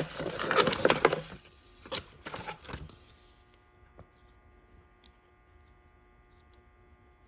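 Close handling noise: rustling and scraping for about a second and a half, then a few scattered knocks, after which only a faint steady hum remains.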